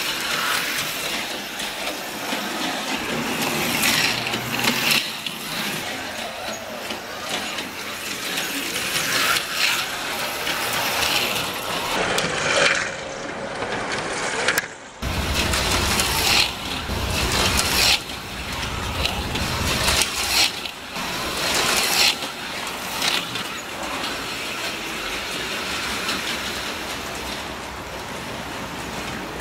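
HO-scale AFX Tomy Super Racing Turbo slot cars running laps, their small electric motors whining in brief swells as the cars pass close by, again and again.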